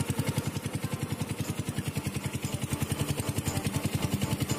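Small boat engine running steadily under way, a fast even putter of about a dozen beats a second.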